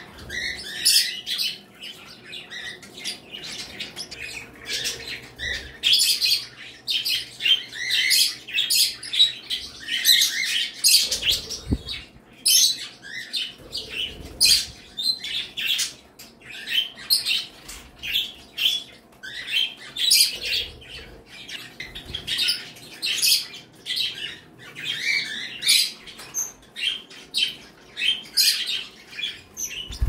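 A room full of pet budgies, cockatiels, canaries and other small parakeets chirping and chattering at once, with frequent short squawks over one another.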